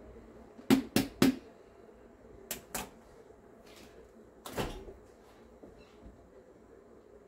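A series of sharp knocks and clunks from kitchen things being handled off camera: three quick ones about a second in, two more around three seconds, and a louder, longer clunk at about four and a half seconds.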